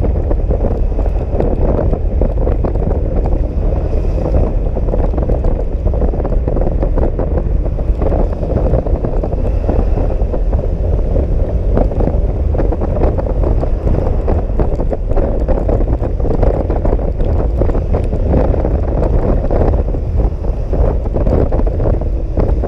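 Wind buffeting the microphone of a scooter riding at speed: a steady, loud low rumble with hiss.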